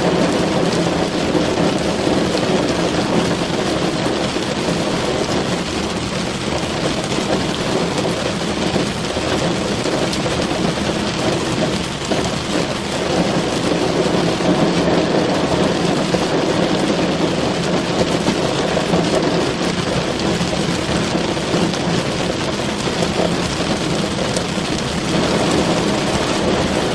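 Heavy rain falling steadily on a car's roof and windows, heard from inside the car: a dense, even patter with no let-up.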